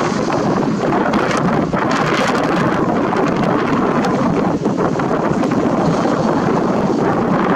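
Heavy wind buffeting the microphone, a loud steady rushing noise, over the sound of loaded ballast hopper wagons rolling slowly past on the track.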